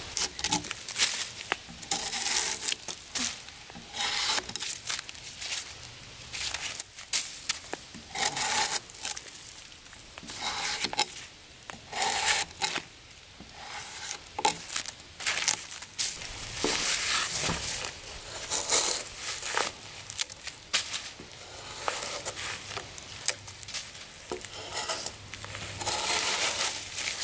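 A drawknife stripping bark from a freshly felled log: repeated, uneven scraping strokes as strips of bark and wood tear away.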